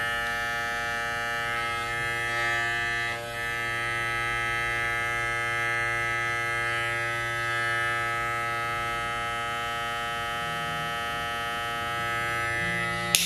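Wahl 5 Star Legend corded clipper's electromagnetic motor running with a steady, even buzz, fed 110 V through a step-down voltage converter. It runs very smoothly, the sign of the correct supply voltage. It is switched off with a click near the end.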